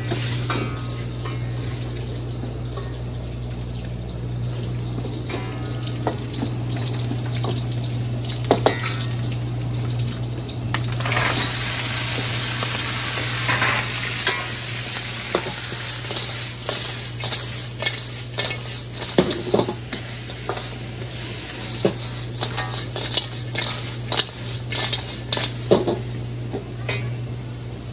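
Crab being stir-fried in tamarind sauce in a pan: sizzling, with knocks and scrapes of a utensil against the pan, over a steady low hum. The sizzle grows louder about 11 seconds in.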